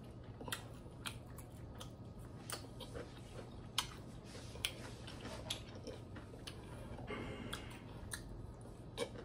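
A person chewing a shrimp and bacon slider: faint mouth and chewing sounds with scattered small clicks.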